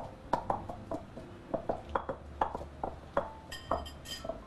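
Stone pestle pounding curry paste in a stone mortar: a run of dull knocks, several a second. A ringing clink of dishes comes a little before the end.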